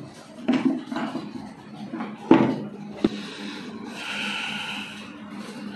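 Steady low hum of aquarium pumps, with a few knocks and rubbing sounds over it and a short hiss near the end.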